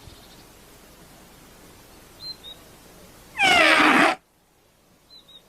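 A toy trumpet making a funny noise: one short, loud, meow-like squeal that slides down in pitch and cuts off suddenly. A couple of faint bird chirps come just before it.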